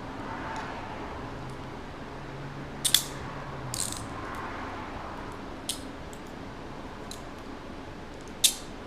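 Steel handcuffs being handled: a few sharp metallic clicks and clinks, the loudest about three seconds in and again near the end, over faint room noise.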